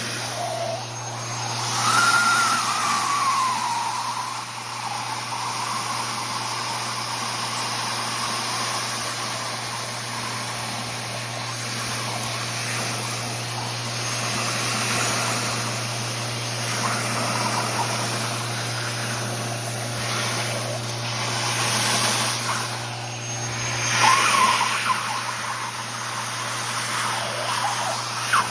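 Steady rush of air and media into the 3-inch hose of a 25 hp industrial central vacuum as the nozzle sucks shot blast media out of a metal bucket. There is a constant low hum under it, and the sound surges louder several times, with a brief whistle that rises and falls about two seconds in.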